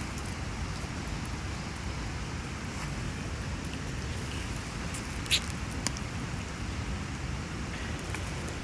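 Wood campfire crackling, with scattered small pops and one sharper pop about five seconds in, over a steady low background rumble.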